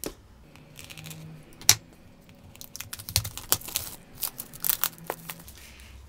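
Scissors snipping into the cellophane shrink-wrap on a card box, a few sharp clicks with one loud one, then the plastic film crinkling and crackling as it is torn and peeled off from about three seconds in.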